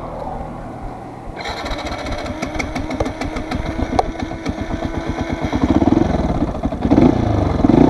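Fantic Performance 125 motard's single-cylinder four-stroke engine running at a steady idle, then revved in a few short blips near the end.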